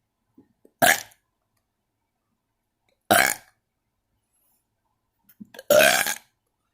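A person burping deliberately: three short, loud burps about two and a half seconds apart, the third the longest. A few faint small sounds come just before the first and third burps.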